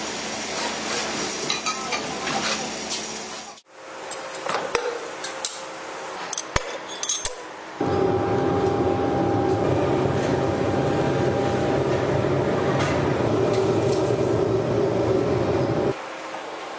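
A few sharp metallic clinks, then a loud, steady noise from a foundry's pit furnace while molten metal is ladled out. The noise stops abruptly near the end.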